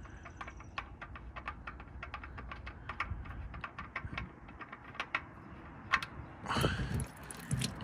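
Rapid, irregular light clicking, about five or six ticks a second, as the spin-on oil filter is unscrewed by hand, followed by a louder rustle about six and a half seconds in.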